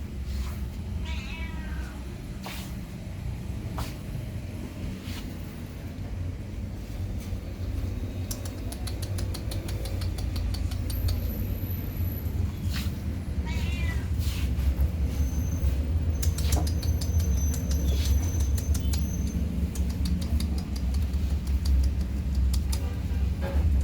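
Domestic cats meowing, two wavering calls about a second in and again near the middle, over a steady low rumble with scattered clicks.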